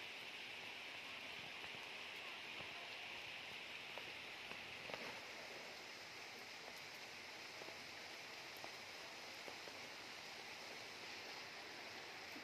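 Steady rain falling, a soft, even hiss.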